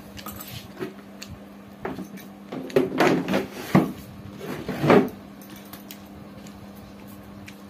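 A hand mixing rice with curry on a steel plate, the bangles on the wrist clinking against the plate in a few short bursts, over a steady low hum.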